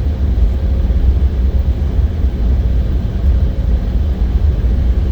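Cabin noise inside an Embraer 190SR airliner with its GE CF34-10E turbofans running: a steady, loud low rumble with a faint steady hum above it, with no clear rise or fall.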